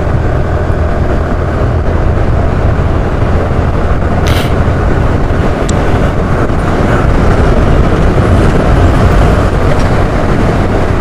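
Suzuki scooter riding along a highway and picking up speed toward about 70 km/h: a steady, loud rush of wind on the microphone over engine and tyre noise, heaviest in the low end. A short hiss about four seconds in.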